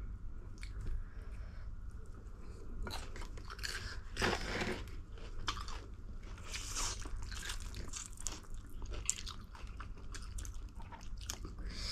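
Close-miked eating of spicy ramen noodles: chewing and biting, with many short wet clicks and smacks.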